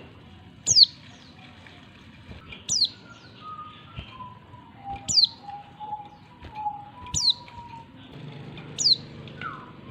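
Female oriental white-eye giving its call, a thin, high note that drops steeply in pitch, five times at roughly two-second intervals: the female's call that draws and excites males. Softer, lower whistled notes from other birds sound in between.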